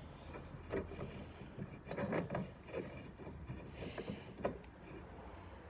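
A rusty, seized clamp being worked back and forth by hand: scattered metal clicks, knocks and scrapes as the rust-stiffened screw and jaw shift and bind.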